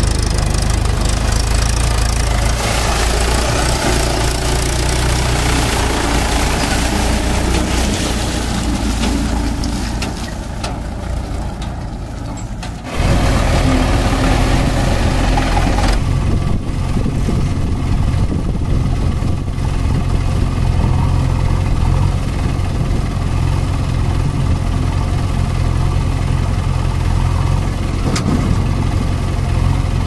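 Diesel engines running steadily: first a Mahindra 575 tractor's four-cylinder diesel pulling a loaded trolley through mud, then, after a sudden change about 13 seconds in, the tractor and a JCB 3DX backhoe loader running side by side while the backhoe digs.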